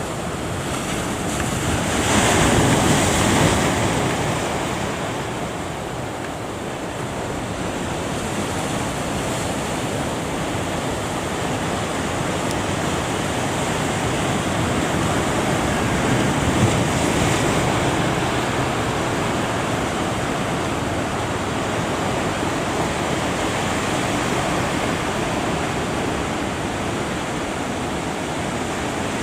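Ocean surf breaking in a continuous wash of noise, with a louder wave crashing about two seconds in and another swell around the middle.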